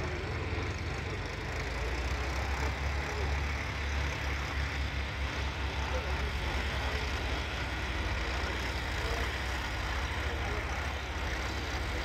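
Matbro Mastiff four-wheel-drive Fordson Major conversion's engine pulling discs across the field, a low, pulsing engine note with no breaks.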